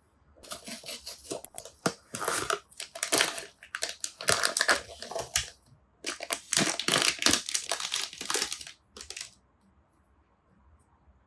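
Blind-box toy packaging being opened by hand, crinkling and tearing in two bouts with a short break about six seconds in, stopping about nine seconds in.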